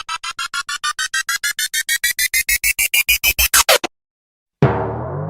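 Synthesized meme sound effect: a fast run of beeping pulses, about seven a second, climbing in pitch and growing louder, stops abruptly. After a short gap comes a sudden deep hit whose low tones ring on and fade.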